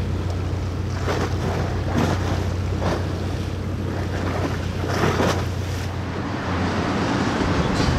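Boat engine running with a steady low hum, water splashing against the hull about once a second, and wind buffeting the microphone.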